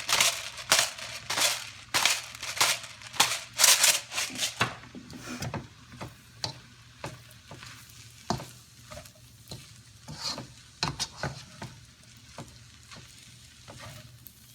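Fried rice being stirred and turned in a hot pot with a spatula, with scraping strokes and a light sizzle. The strokes come quick and loud, about two a second, for the first four or five seconds, then turn quieter and more scattered.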